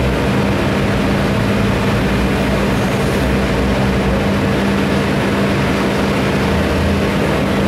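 Link-Belt crawler excavator's diesel engine running steadily with a constant drone while the boom and bucket are worked.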